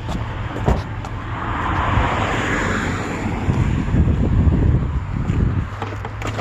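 Pickup truck running, heard from inside the cab as a steady low hum, with a rushing noise that swells and fades about two to three seconds in, like a vehicle going by; a heavier low rumble follows for about two seconds before the steady hum returns.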